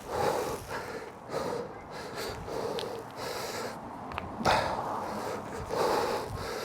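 A person breathing hard from exertion during a workout, in short forceful puffs about two a second, with a louder puff about four and a half seconds in.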